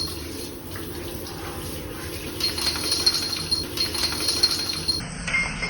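Water running and splashing during a bath.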